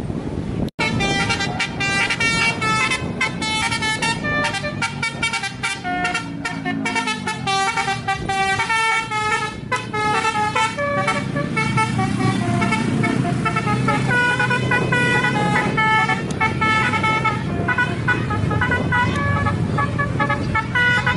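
Basuri telolet horn on an Indonesian bus playing a fast melody of rapidly changing notes, over the bus engine running. The sound cuts out briefly about a second in.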